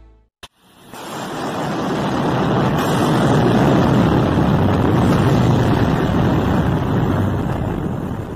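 A steady rushing noise effect under a news title card, swelling in about a second in, holding, and fading away at the end, with a short click just before it begins.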